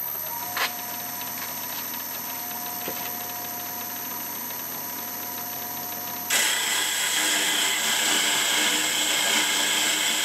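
Boxford metal lathe running with a steady whine, then about six seconds in the sound abruptly turns louder and harsher as the cutter bites into a hardened steel bolt.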